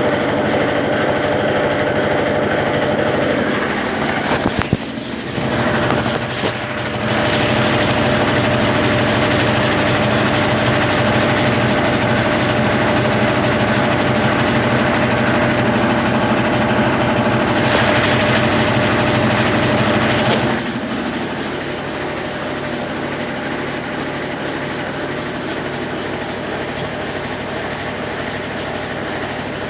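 Consul Facilite 10 kg top-load washing machine, fitted with a Brastemp BWL09 agitator, running its wash stage: a steady motor hum as the agitator churns the load. The sound is unsettled for a couple of seconds early on, a hiss joins in about two-thirds through, and after that the level drops to a quieter steady hum.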